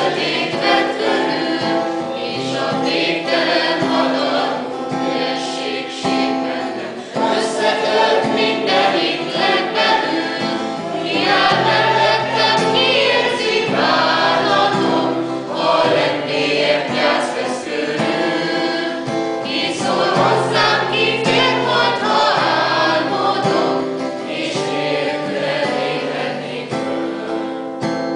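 A small choir of men's and women's voices singing together in several parts.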